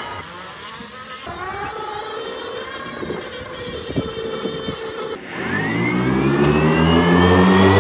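Electric motors of a Ryobi battery-powered zero-turn mower whining, their pitch gliding as it moves. About five seconds in the sound breaks off, and a louder whine rises steadily in pitch as the motors spin up.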